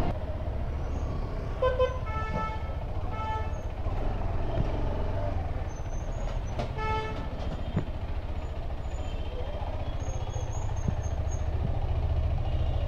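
Single-cylinder engine of a KTM 390 Adventure running steadily at low speed as a low rumble. A vehicle horn toots three times between about two and three and a half seconds in, and once more about seven seconds in.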